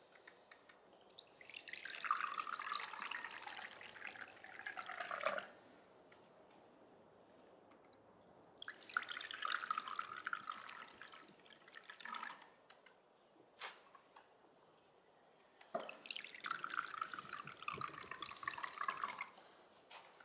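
Tea poured from a ceramic teapot into cups, three separate pours of a few seconds each with short pauses between them. A single small click falls between the second and third pours.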